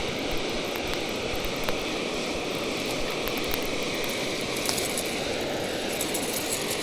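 Steady rushing of water pouring over a dam spillway, a constant even roar, with a couple of faint clicks about a second in.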